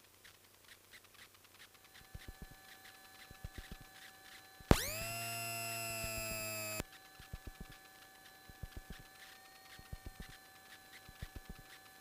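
Aircraft radio and intercom audio between transmissions: faint crackle and clicks with a steady faint tone. About five seconds in, a buzzy electronic tone sounds for about two seconds. It dips in pitch as it starts, holds steady, then cuts off abruptly.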